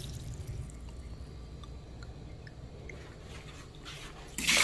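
Faint drips and small ticks over a low steady hum, then, near the end, a sudden rush of water from the Samsung refrigerator's door water dispenser.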